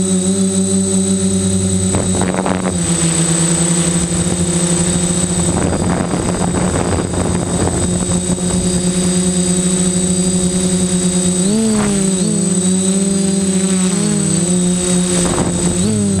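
Electric motors and propellers of a multirotor drone humming steadily, heard close up from a camera on its frame. Rushing wind noise sweeps over the microphone twice, and the hum's pitch wavers up and down near the end as the throttle changes.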